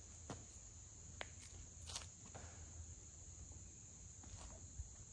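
Faint, steady high-pitched insect chorus with a few faint ticks scattered through it.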